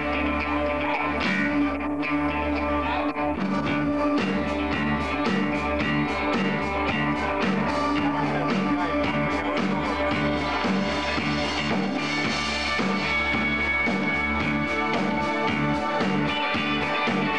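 Live rock band playing: electric guitar over a steady beat on a drum kit, with bass.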